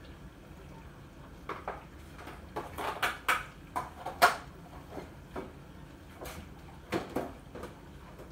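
A run of sharp clicks and knocks, about a dozen spread over several seconds, the loudest about four seconds in.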